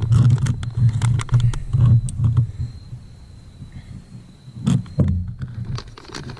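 A bag of fish-fry breading mix crinkling and rustling as it is handled and pulled open, with scattered sharp clicks and a louder crackle near the end. Under it a low, pulsing rumble is loud for the first two and a half seconds and then falls away.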